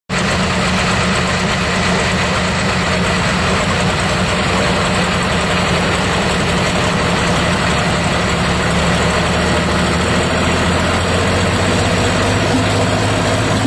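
Engine of a tractor-pulling machine running loudly and steadily on a stationary test while its water-injection system is tried, its low note shifting partway through.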